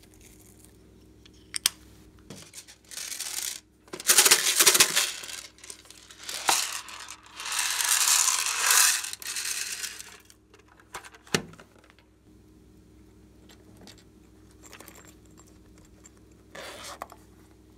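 Small hard plastic beads rattling and pouring in a plastic box in several loud bursts, with a few sharp plastic clicks, the loudest a little past eleven seconds in.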